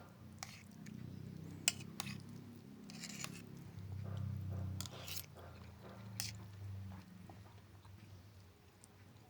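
Close-miked chewing of pepes ikan mas, spiced carp cooked in banana leaf, with wet mouth smacks and clicks every second or so.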